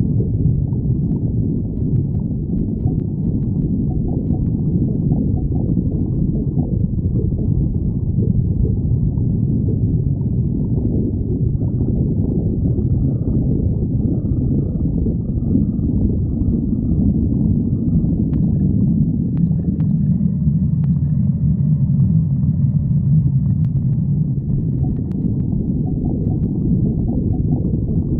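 A hungry stomach growling: continuous low gurgling rumbles. They settle into a lower, steadier rumble about two-thirds of the way through.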